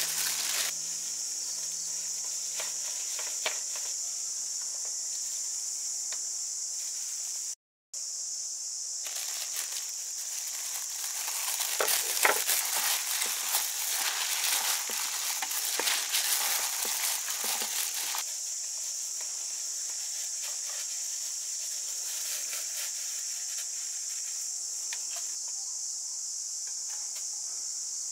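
Plastic-gloved hand squeezing and mixing cooked rice in a metal bowl: crackly rustling of the glove and soft squishing of the rice, loudest in the middle stretch. Under it runs a steady high insect drone, and the sound cuts out for a moment about a third of the way in.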